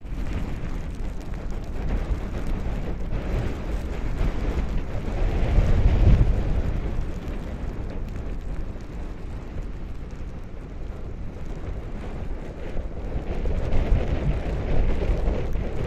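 Wind buffeting the microphone: a loud, low rumbling gust noise that swells and fades, strongest about six seconds in and again near fourteen seconds.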